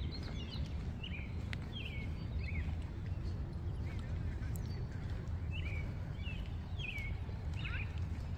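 Small birds chirping in short, quick calls, about one or two a second, over a steady low rumble with a few faint sharp clicks.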